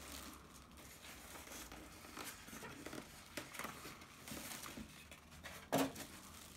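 Quiet handling noises from turntable parts and packaging being worked by hand: soft rustling and scattered light clicks, with one sharper knock near the end.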